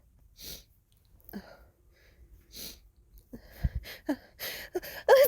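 A woman's sneeze build-up from a tickling nose: a few slow breaths, then quickening hitching gasps with rising voiced "ah" sounds over the last two seconds. It ends in a loud burst as the sneeze breaks out at the very end.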